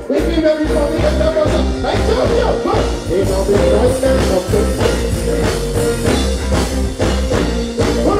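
Live reggae band playing loudly, with a bass pulse about twice a second under sustained guitar and keyboard lines and drum hits.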